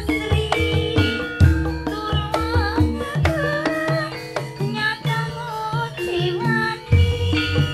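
East Javanese reog kendang music: kendang hand drums beating a steady pattern under a high, wavering melody line.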